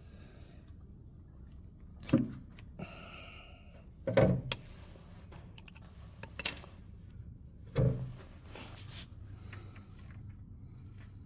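A spanner being worked on the gearbox oil drain plug of a Morris 1100 S: four sharp knocks and clanks spaced a couple of seconds apart, with a short scraping rasp between the first two.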